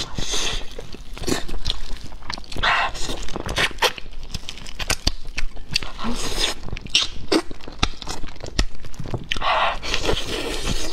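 Close-miked chewing and wet lip smacks as braised pork is eaten off the bone, with many sharp wet clicks throughout.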